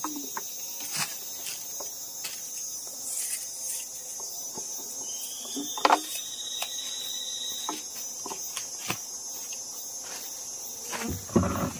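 Steady high-pitched chirring of insects, with scattered small knocks and clunks. A thin rising whistle runs through the middle, and there is a louder thump near the end.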